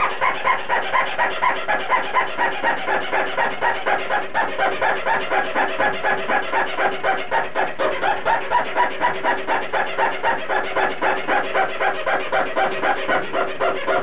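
Cotton pad rubbed hard over a CD with scratch-repair polish, squeaking in a fast rhythm about four strokes a second; the squeaking stops just after the end.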